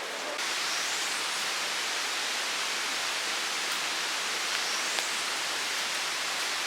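Steady rushing of a waterfall, which steps up in level about half a second in.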